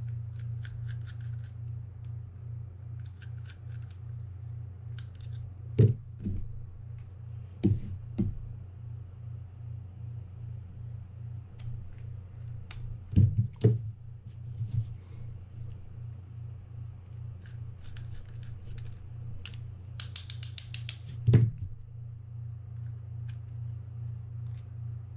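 Small metal clicks and taps from hand tools working on a Quantum Catalyst 40 spinning reel's bail arm and rotor: short runs of rapid light ticks and a few sharper knocks, over a steady low hum.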